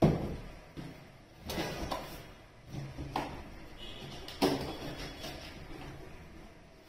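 A cardboard box being handled and pushed across a glass tabletop: a sharp knock at the start, then softer knocks and sliding scrapes, the clearest about a second and a half, three and four and a half seconds in.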